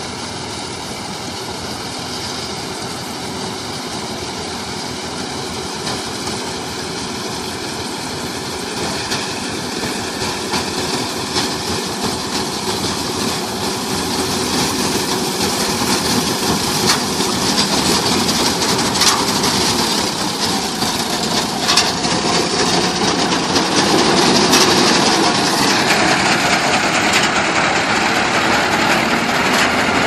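Paddy combine harvester's engine and machinery running steadily, growing gradually louder, with a few sharp clicks about two-thirds of the way through.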